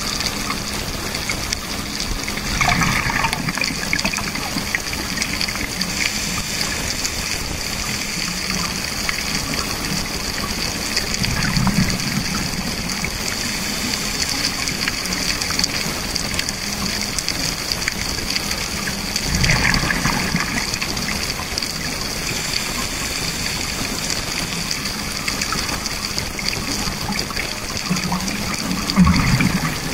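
Underwater recording of scuba divers' exhaled bubbles gurgling up from their regulators four times, about every eight to nine seconds, over a steady underwater hiss.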